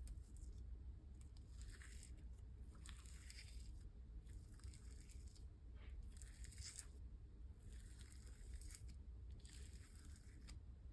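Faint sticky squishing and crackling of a spreadable slime with crushed jelly-cube pieces being worked, in soft irregular bursts every second or two.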